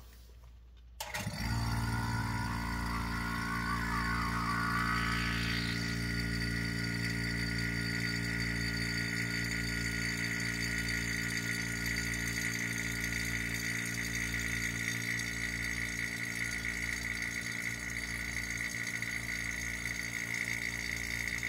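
Vacuum pump starting suddenly about a second in and running steadily as it evacuates the chamber. A whistle rises in pitch over the first few seconds, then settles into a steady high whine.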